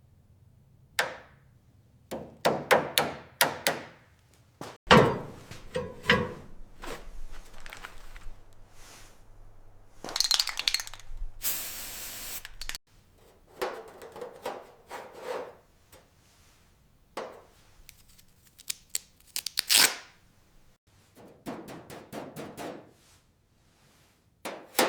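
Workshop sounds: a run of sharp knocks, clicks and scrapes, the loudest knock about five seconds in, with a hiss lasting a couple of seconds near the middle.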